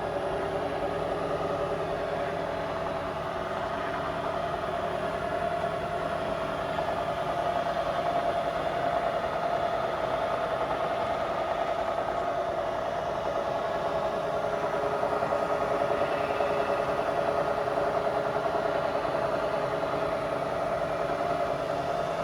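New Bridgeport CNC knee mill running: a steady machine hum with a clear pitched whine, growing a little louder partway through.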